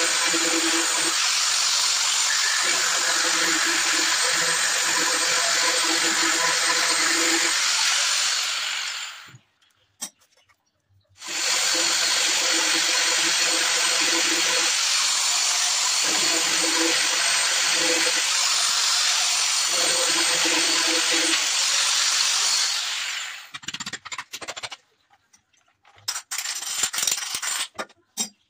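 Angle grinder fitted with a 22 mm diamond core bit, drilling through wet granite with a steady loud grinding. It stops about nine seconds in, starts again a couple of seconds later, and runs down near the end, followed by a few light knocks and clicks.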